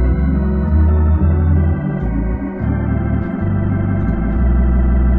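Hammond A100 organ played through a Leslie 45 speaker: sustained chords on the lower manual over pedal bass, the bass note changing about every second.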